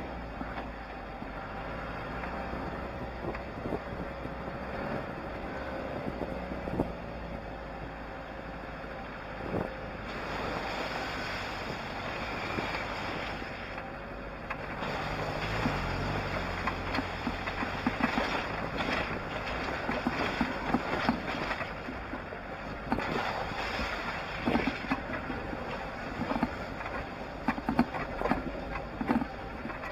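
Off-road 4x4 driving along a rough, rutted lane, its engine running steadily with wind on the microphone. From about halfway on, frequent knocks and rattles come as it jolts over the uneven track.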